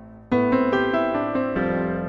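Slow piano music: a decaying chord, then a new chord struck about a third of a second in, followed by a few changing notes of a gentle melody.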